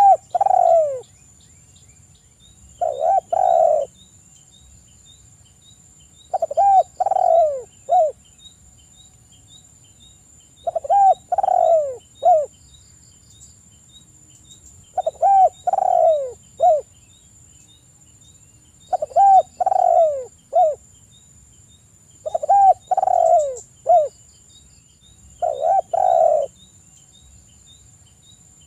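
Spotted dove (tekukur) cooing: eight phrases, one every 3 to 4 seconds, each a few falling coos ending in a short clipped note.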